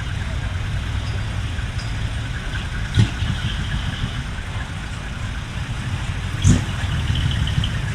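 Large truck engines idling steadily, with two sudden thumps, about three seconds in and again about six and a half seconds in.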